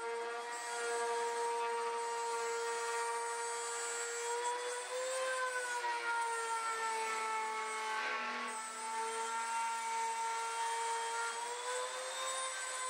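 Hand-held router running at high speed, its bit cutting an inspection hole in aluminum wing skin as it is guided around a template. A steady high whine whose pitch rises briefly about five seconds in and again near the end.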